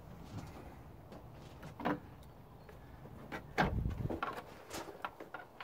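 Work sounds from dismantling a scooter's front: scattered clicks and knocks of screws, a screwdriver and body panels being handled, with a heavier cluster of knocks and a low thud about three and a half seconds in.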